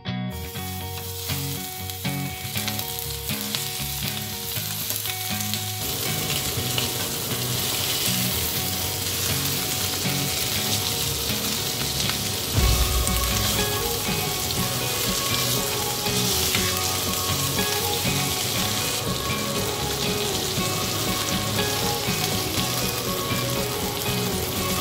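Stuffed chicken breasts sizzling as they fry in hot oil in a nonstick pan. The sizzle starts as the chicken is laid into the oil and then holds steady, with a low thump about halfway through.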